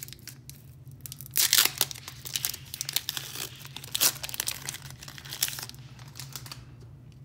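Shiny foil Pokémon booster pack wrapper being torn open and crinkled by hand, with the loudest tearing about a second and a half in. The crackling carries on in bursts and dies down after about six seconds.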